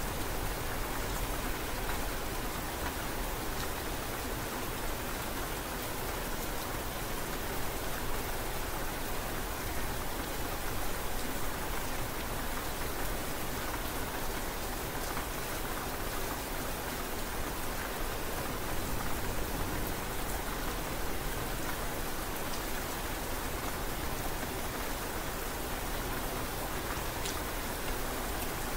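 Steady rain falling: an even hiss of drops on surfaces, with no change in strength.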